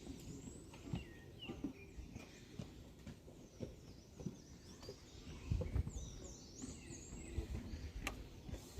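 Small birds chirping repeatedly in short high calls, over irregular low thuds and rumbles that are loudest a little past the middle.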